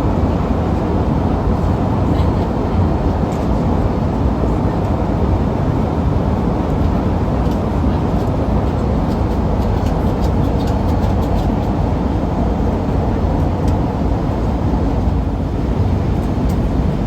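Steady low rumble inside a Boeing 787-8 Dreamliner's cabin, the noise of its jet engines and airflow, with a few faint clicks partway through.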